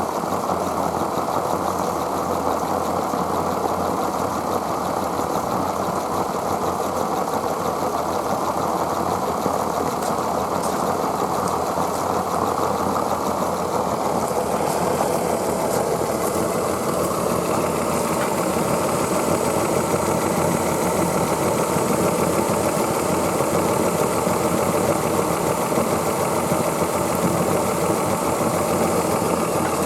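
Aster West Country gauge 1 live steam locomotive running under steam: a steady, dense mechanical rushing that grows a little louder about halfway through.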